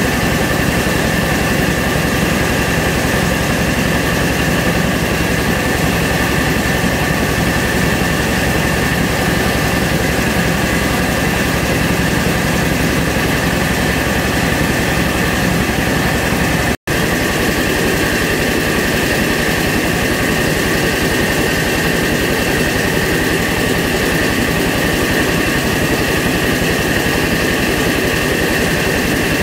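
Rice milling machine (huller and polisher) running steadily: a loud constant mechanical drone with a steady high whine. The sound drops out for an instant about two-thirds through, with less low rumble after it.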